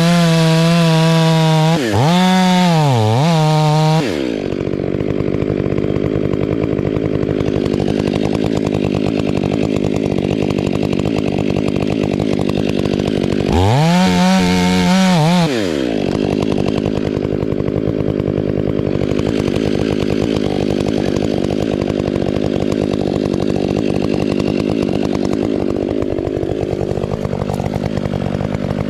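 Two-stroke chainsaw running at high revs at the start, its pitch dipping and recovering a few times, then dropping to a steady lower drone; it revs high again briefly about halfway through before settling back.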